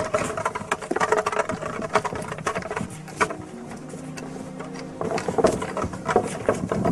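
Iron-tyred wooden cart wheel rolled by hand over a gravel track: an irregular run of crunches and knocks as the iron tyre grinds over the stones, with footsteps on the gravel.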